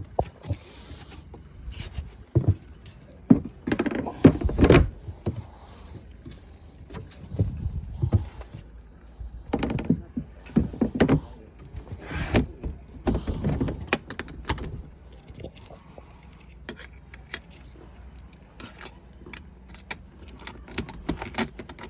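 Irregular knocking and clattering, many sharp clicks and knocks in uneven clusters, loudest about four to five seconds in.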